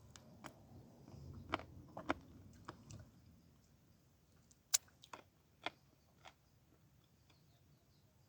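Close-miked eating sounds: chewing and biting with a scattered series of sharp wet mouth clicks, the loudest a little under five seconds in, growing sparser toward the end.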